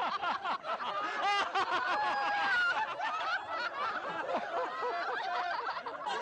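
A crowd of men, women and children laughing together, many voices overlapping.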